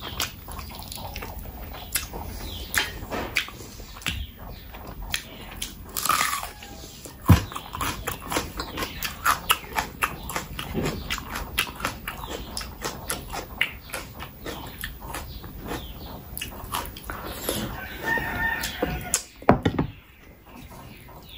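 Close-miked eating sounds of someone eating biryani and mutton curry by hand: wet chewing and lip-smacking, a dense run of short clicks throughout. A brief pitched sound comes near the end.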